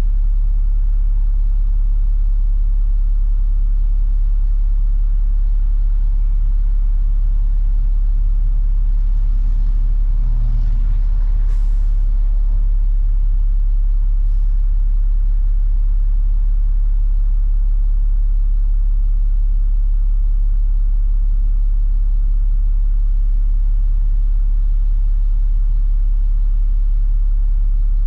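International IC FE300 school bus's MaxxForce DT inline-six diesel idling with a steady low rumble, heard from a rear seat inside the bus. The rumble swells briefly about ten seconds in, and two short hisses come a few seconds apart.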